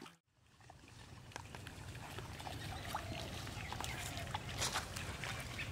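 Outdoor rural ambience fading in after a moment of silence: a low steady rumble with scattered light ticks and a few short, faint animal calls.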